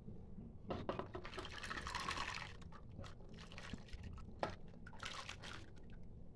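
Shelled sweet corn kernels tipped from a bowl into a steel pot of water, splashing in faintly: a longer spill about a second in and a shorter one near five seconds.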